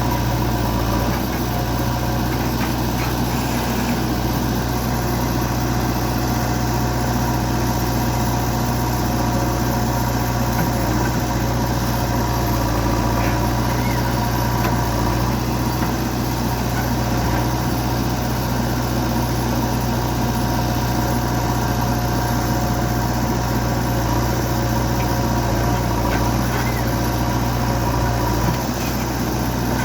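Backhoe loader's diesel engine running steadily at an even speed, a low engine note with a thin steady whine above it.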